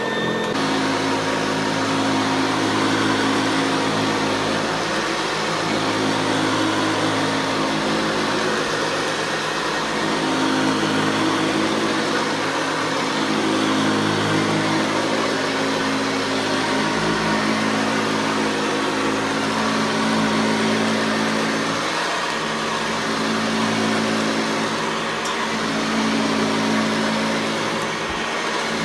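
Hoover Convertible upright vacuum cleaner running steadily: a motor hum under a broad rush of air, the loudness swelling gently now and then.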